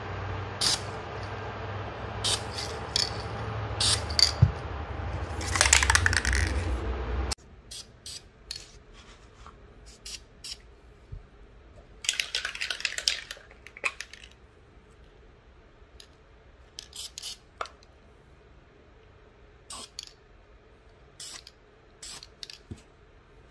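Aerosol spray-paint can hissing in two short bursts, about five seconds in and again about twelve seconds in, among scattered sharp clicks and rattles.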